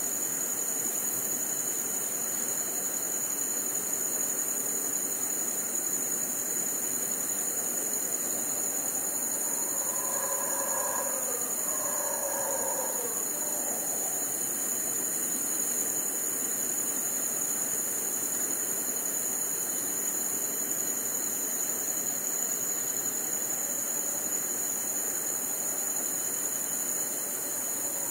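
Crickets chirring in a steady, high-pitched chorus over constant hiss, with a few faint pitched calls about ten to thirteen seconds in.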